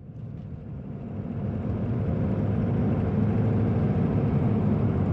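Vehicle driving on a road, heard from inside: a steady low engine and road rumble that fades in over the first two seconds.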